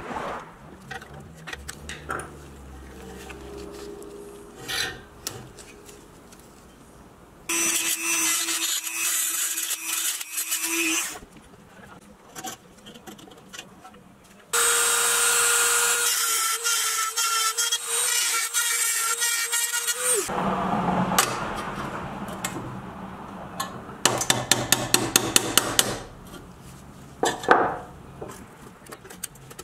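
Hand-tool work on a pressed-steel toy trailer: metal scraping and prying with a pick, two loud rasping stretches that start and stop abruptly, then a quick run of sharp taps and a single knock near the end, as when a punch is struck to drive out a wheel axle.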